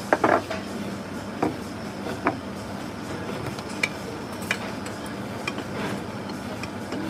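Metal chopsticks clinking and tapping against bowls and the hot pot: a few separate sharp clinks, the loudest cluster right at the start and lighter taps spread through the rest, over a steady low hum.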